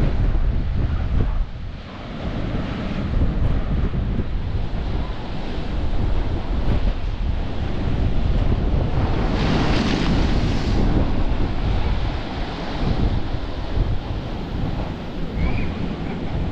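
Gusting wind buffeting the microphone over rough sea, with waves breaking; one wave crashes louder about ten seconds in.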